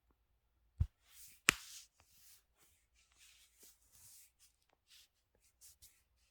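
Knee joint popping: two sharp cracks about a second in, half a second apart, the second the louder, followed by faint rustling and small clicks.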